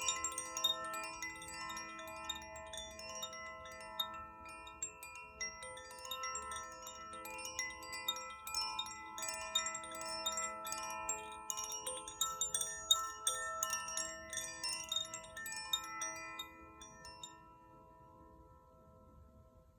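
Koshi 'Aria' wind chime, its clapper tinkling irregularly against the tuned metal rods inside its bamboo body, the tones overlapping and ringing on. The strikes stop about 17 seconds in and the chord fades away.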